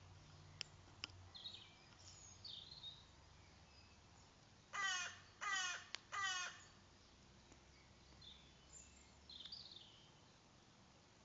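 A crow cawing three times in quick succession, about five seconds in. Faint high chirps of small birds come before and after.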